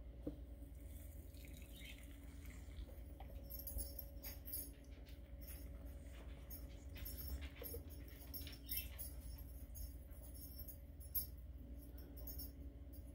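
Just-boiled water poured in a thin stream from an electric kettle onto loose tea in a glass infuser mug, a faint patter of trickling and small splashes, over a steady low hum.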